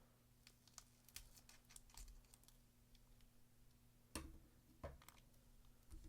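Faint clicks and crinkles of a foil Pokémon card booster pack being handled and opened, with two louder knocks a little after four and five seconds in, over a low steady hum.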